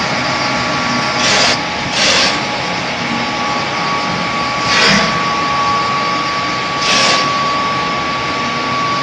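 Egg tray making machine line running on test: a steady machinery drone with a thin constant whine. Four short bursts of hiss break through it, the first two close together near the start and the others at about five and seven seconds.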